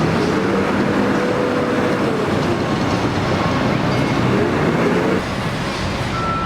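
Heavy vehicle or machinery running loudly, with a motor whine that rises, holds and falls away, then rises again before the noise drops off about five seconds in.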